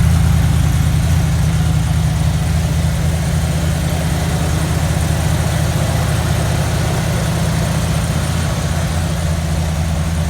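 Ford Bronco engine idling with a steady, even low drone.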